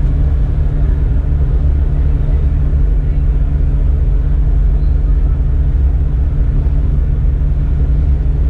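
Bus engine idling, heard from the driver's cab as a steady low rumble with a constant hum.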